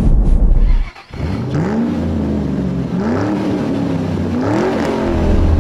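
Car engine revving up and down in several rising and falling sweeps, after a brief cut-off of steady in-cabin road rumble about a second in.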